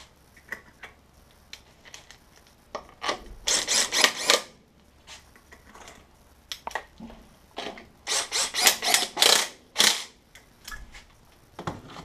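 Cordless power driver spinning bellhousing bolts into the transmission case in two runs, about three seconds in and again about eight seconds in, with scattered clicks and clinks of bolts being handled between.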